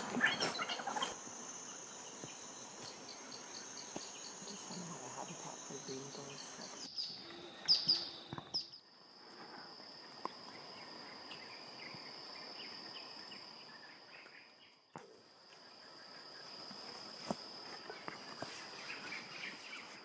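A steady high-pitched insect drone, with a few sharp bird chirps about seven to eight seconds in; near nine seconds the drone switches to a slightly lower pitch.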